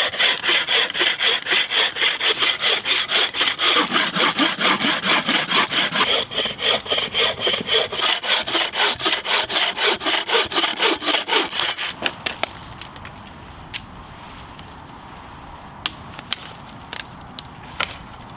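Wooden bucksaw cutting through a log of seasoned deadwood for firewood, in quick, even back-and-forth strokes, several a second. The sawing stops about two-thirds of the way in, followed by a few sharp clicks.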